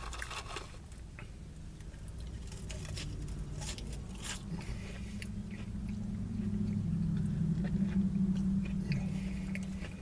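Close-up chewing and biting of french fries, with scattered crunchy mouth clicks. A low hum underneath grows louder through the second half.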